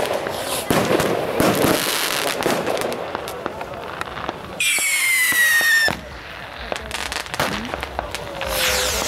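Fireworks display: aerial shells bursting with a dense crackle of small reports, then about halfway through a loud whistle that slides slightly down in pitch for just over a second, followed by a few scattered pops.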